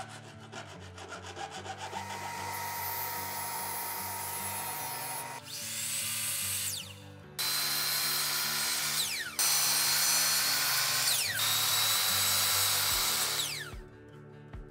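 Hand file rasping a thin metal rod in short strokes, then an electric compound miter saw cutting wood strips in several runs. The saw starts sharply each time, and its pitch falls as the blade winds down after each cut. Soft background music underneath.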